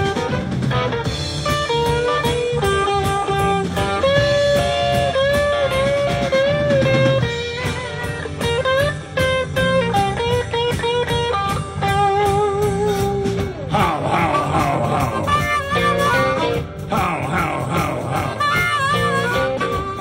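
Blues band playing: an electric guitar solos with bent and wavering notes over bass and drums, with a flurry of rapid notes near the end.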